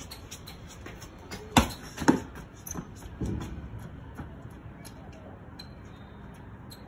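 Two sharp thumps about half a second apart, then a couple of fainter knocks, over a steady background hiss.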